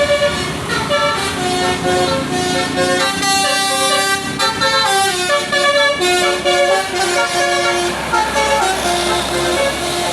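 Tour bus's 'basuri' telolet musical air horn playing a tune of short notes that step up and down, over road noise from the bus.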